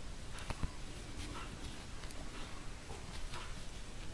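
Faint rustling of yarn as a metal crochet hook is worked through the stitches, with two small clicks about half a second in, over a low steady hum.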